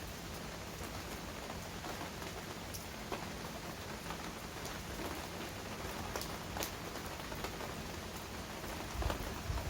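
Heavy rain falling steadily, with individual drops tapping sharply here and there. A low rumble swells in near the end.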